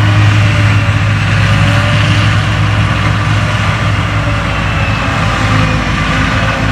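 Diesel engine of heavy harvest machinery running steadily under load, a loud, even low drone with faint tones above it that drift slowly in pitch.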